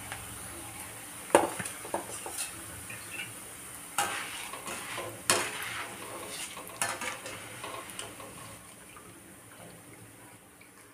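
Rice poha (flattened rice) deep-frying in hot oil in a steel kadai, a steady sizzle as the flakes puff up. A wire-mesh skimmer scrapes and clinks against the steel pan several times as the flakes are stirred and scooped out. The sizzle fades near the end.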